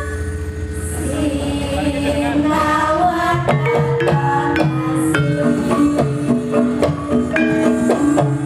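Javanese gamelan ensemble playing: bronze metallophones struck with mallets ring out a stepping melody over kendang drum strokes. Long ringing notes die away in the first second, then the struck melody picks up and grows denser.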